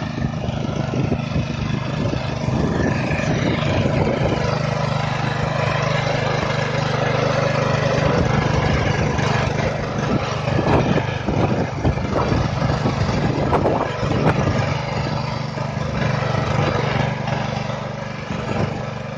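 Power weeder's small engine running steadily under load as its rotary tines churn through grassy soil, with a run of scattered knocks between about ten and fifteen seconds in.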